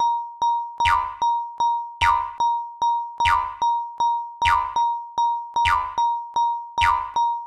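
Cartoon railroad-crossing warning bell made of synthesized sounds: a short electronic ding on one pitch repeats about two and a half times a second. A falling boing-like sweep with a low thud joins it about once a second, in a steady looping rhythm.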